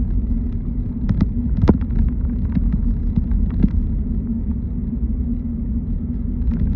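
A car driving: a steady low rumble, with a few short clicks and knocks in the first half.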